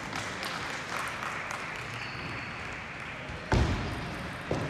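Busy table tennis hall: a steady din of many distant ball clicks and murmuring voices, then two sharp knocks of a table tennis ball near the end, about a second apart, as play at the nearest table starts.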